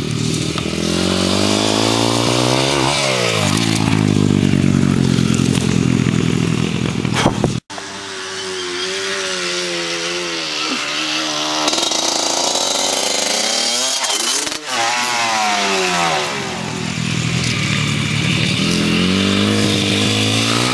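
Small dirt bike engine revving as it rides by, its pitch rising and falling with each pass. The sound cuts off abruptly twice, about a third and two thirds of the way through.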